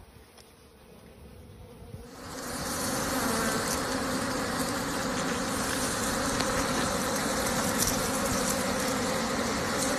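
A swarm of honeybees buzzing steadily around an opened wild comb, a dense hum that comes in suddenly about two seconds in after a quieter start.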